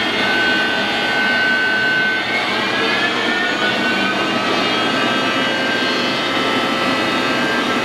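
Monarch 10EE toolroom lathe's spindle drive running in the open-belt high range, a steady machine whine with several tones slowly rising in pitch as the spindle speeds up toward 4,000 RPM.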